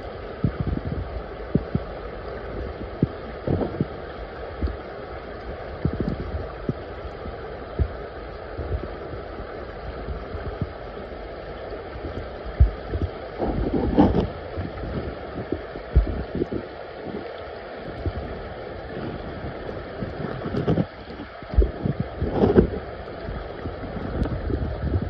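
Creek water flowing, heard muffled through a submerged camera, with irregular low thumps and knocks. Two louder knocks come just past the middle and near the end.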